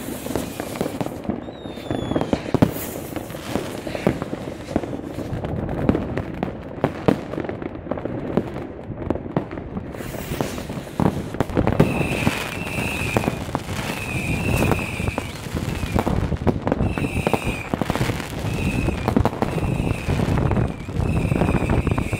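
Fireworks rockets and firecrackers going off in great numbers: dense, irregular bangs and crackles with no pause. From about halfway, a high warbling tone repeats roughly once a second over the bangs.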